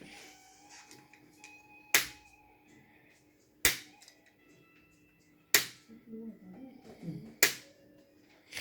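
Activator chiropractic adjusting instrument firing four sharp clicks, about two seconds apart. Each click is the spring-loaded plunger delivering an adjusting thrust to the patient's pelvis.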